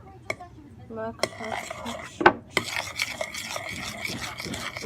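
Spoon stirring glue and shaving cream for slime in a bowl: scattered clinks against the bowl, with a sharp knock a little past two seconds in, then a stretch of steady scraping and clicking.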